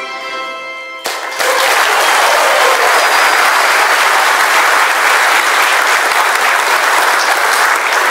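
The held final chord of a choir's song ends about a second in, and the audience breaks into loud, steady applause.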